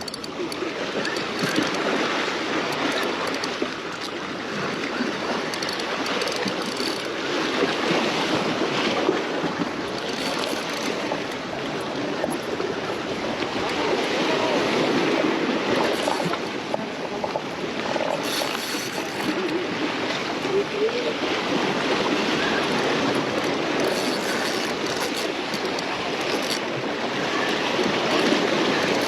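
Ocean surf washing steadily against the rocks of a jetty, swelling and easing in slow surges.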